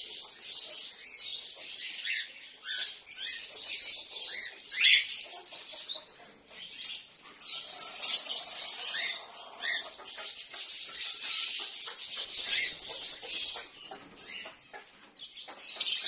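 A flock of cockatiels chirping and calling over one another in a constant high chatter, with wings flapping now and then.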